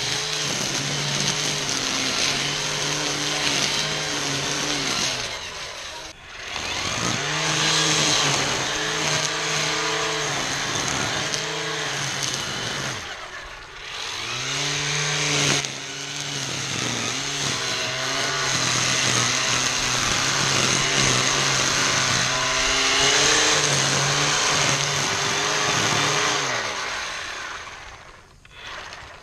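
ECHO 58-volt cordless string trimmer (PAS2620 power head with Pro-Torque trimmer attachment) running at speed, its line cutting through tall weeds and grass with a steady whine and hiss. The motor winds down and spins back up twice, then winds down near the end.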